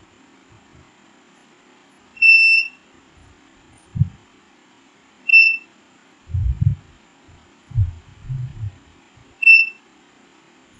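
Digital mosque prayer-time clock beeping as its settings are changed by remote-control button presses: three high beeps, the first about half a second long and the other two shorter. Several dull low thumps fall between the beeps.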